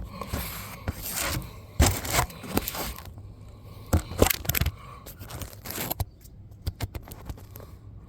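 Irregular scrapes and knocks of a rubber mini bike tire being handled and worked against its wheel rim, with a few sharper knocks among them.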